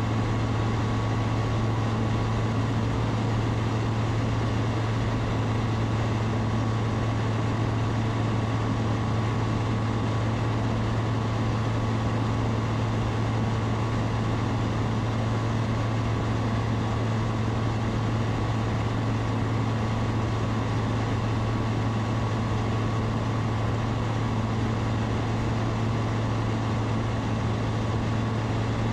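Zenith STOL CH 701's 100-hp Rotax 912ULS four-cylinder engine and propeller running steadily in flight, a constant low drone with a fainter higher whine riding on it.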